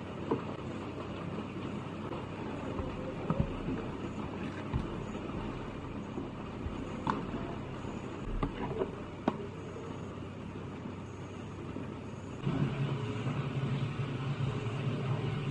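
Light clicks and taps from raw chicken wings and seasoning being handled in a plastic tub, over a steady background rumble. About twelve seconds in, a low steady hum joins in.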